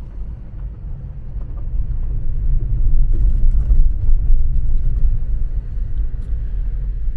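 A car driving on a gravel road, heard from inside the cabin: a steady low rumble of tyres and engine that grows louder about two to three seconds in, with a few faint ticks.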